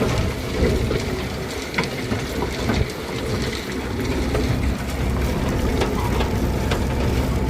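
Tractor pulling a seed drill across a field: a steady low engine rumble with repeated rattling and clicking from the towed machinery.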